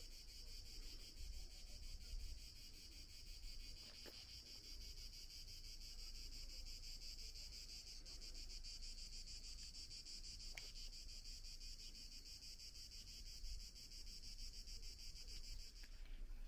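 Cicadas chirring in a steady, high-pitched, finely pulsing drone that stops abruptly near the end, over a low rumble.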